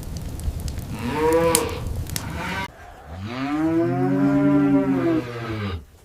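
Cattle mooing twice: a short, higher call about a second in, then a long, deep moo that rises and falls. A crackling, clicking background noise runs under the first call and stops abruptly partway through.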